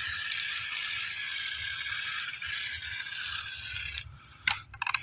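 Hand-pump pressure garden sprayer spraying foam through its nozzle: a steady hiss that cuts off about four seconds in, followed by a few short clicks.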